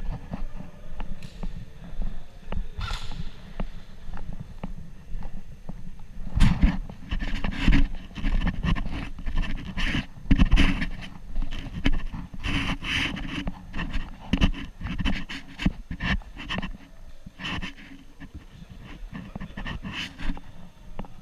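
A person panting hard, with short knocks and clatter mixed in.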